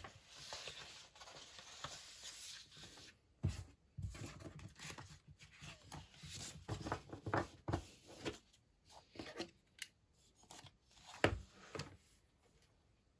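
Faint rustling, tapping and clicking of small objects being handled, with a few sharper knocks scattered through; it dies away near the end.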